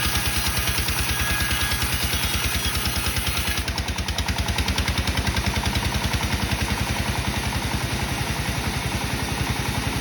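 Sawmill engine running steadily with an even chugging beat of about eight pulses a second; the higher sound above it changes about three and a half seconds in.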